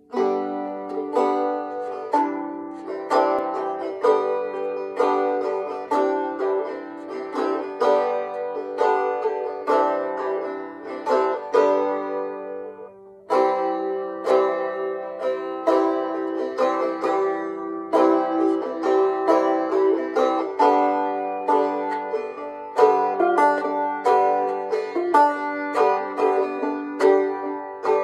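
Restored old 5-string open-back banjo being picked, a steady run of plucked, ringing notes. The playing dips briefly about halfway through and then picks up again.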